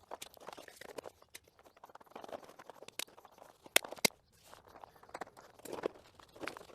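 Footsteps and scattered clinks and knocks of steel rebar being laid down, with two sharp clacks close together about four seconds in.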